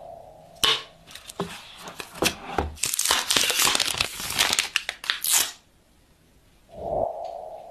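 Plastic protective film on a new phone crinkling and tearing as it is pulled off: a dense run of crackles that grows louder over a few seconds and then stops. Near the end a short mid-pitched tone swells and fades away.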